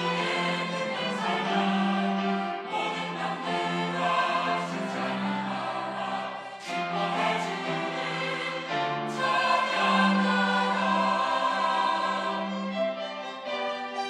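Church choir singing an anthem in held, changing chords.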